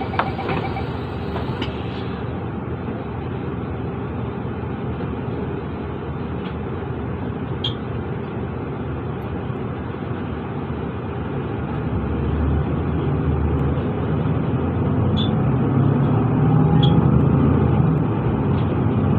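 Inside a Mercedes-Benz Citaro city bus: the diesel engine runs steadily at the stop, then builds in a low, rising drone from about two-thirds of the way through as the bus pulls away. A few faint ticks sound over it.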